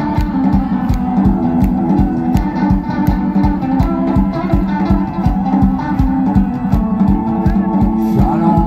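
Live band playing an instrumental passage: guitar over a steady drum beat.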